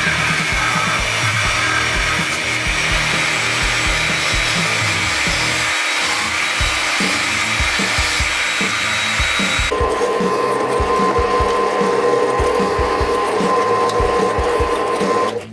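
Table-mounted jigsaw running with its blade cutting a round disc out of plywood. About ten seconds in, it changes abruptly to a drill press running steadily as it bores the centre hole in the wooden disc.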